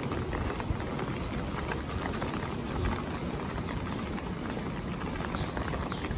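Footsteps walking on a damp paved street, with light rain pattering on an umbrella overhead. Steady throughout.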